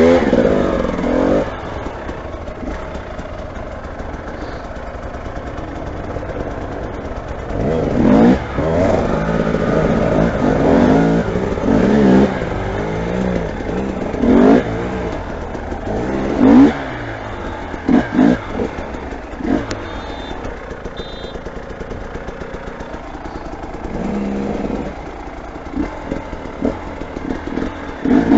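Motorcycle engine revving in repeated throttle blips and surges, dropping back to a lower running note in between.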